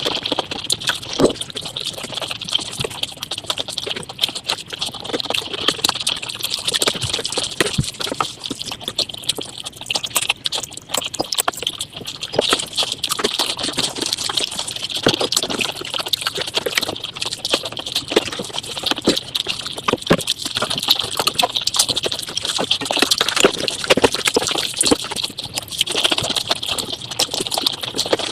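Mukbang eating sounds sped up about five times: a dense, unbroken stream of quick chewing, crunching and mouth clicks over a steady high hiss.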